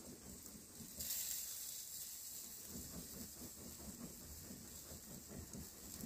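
Food sizzling in a hot pan: a steady high hiss that rises sharply about a second in and holds.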